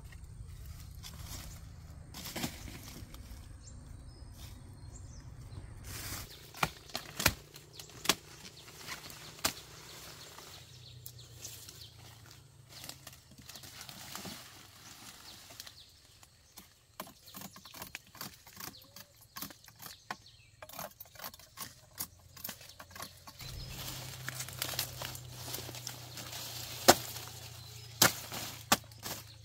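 Sugarcane being cut and handled by hand: irregular sharp chops and cracks, with a few louder strikes near the end. A low steady hum runs underneath at the start and again from about two-thirds of the way in.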